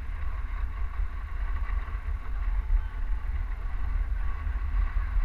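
Wind rumbling steadily on a helmet-mounted GoPro's microphone while skiing downhill, over the hiss of skis sliding on packed snow.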